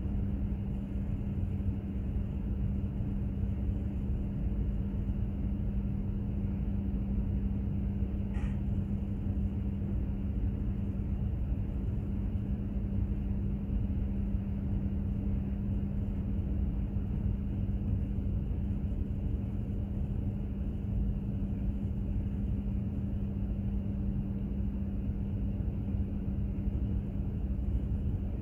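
Steady low rumble and drone of a container ship under way, its machinery giving a constant low hum.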